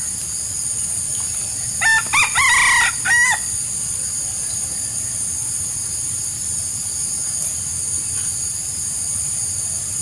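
Wild chicken rooster crowing once, about two seconds in: a short crow of a few broken notes, the middle one held, lasting about a second and a half. A steady high hiss runs underneath.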